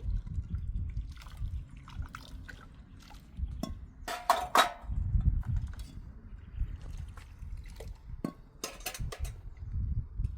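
Water splashing and dripping, with scattered short knocks and a louder cluster of them about four seconds in.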